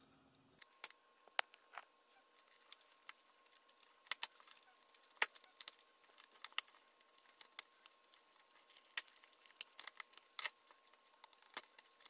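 Faint, irregular clicks and rattles of plastic wire-harness connectors and their wires being handled and pushed into the sockets of a refrigerator control board.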